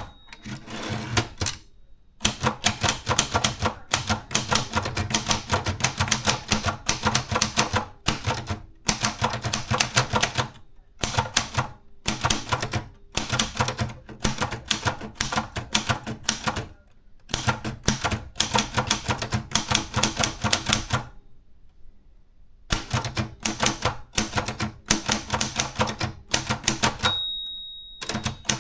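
Maritsa 30 portable typewriter being typed on: the keys strike in fast runs of sharp clacks, broken by short pauses and one longer pause about two-thirds of the way through. Near the end the carriage's margin bell rings once, the sign that the line end is near.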